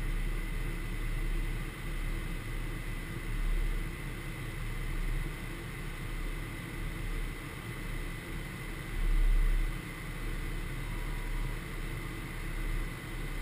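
Steady flight-deck noise of a Gulfstream G550 in flight: a rush of airflow over the cockpit and the hum of its twin Rolls-Royce BR710 turbofans, with a low rumble and a thin steady whine. The low rumble swells louder briefly about nine seconds in.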